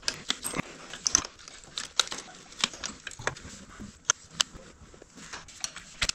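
Sharp, irregular clicks and light knocks of a dirt bike's rear brake caliper and a Shark Fin rotor guard being worked together by hand while the guard is fitted, about a dozen over several seconds.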